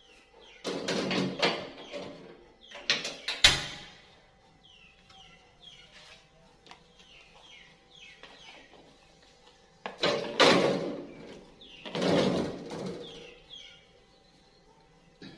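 A stainless steel pot clattering and scraping as it is set on a gas stove, with a sharp click about three and a half seconds in as the burner is lit. From about ten seconds in come two bursts of clattering and splashing as gayam fruits are tipped from a plastic bowl into the water in the pot. Birds chirp faintly in between.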